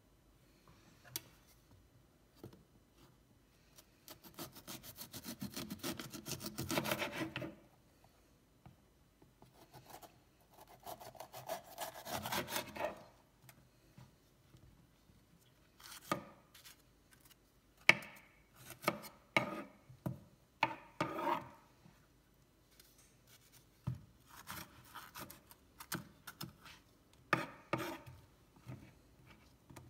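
Chef's knife cutting a green bell pepper on a wooden cutting board: two longer stretches of rasping slicing strokes in the first half, then a run of separate cuts and knocks of the blade on the board.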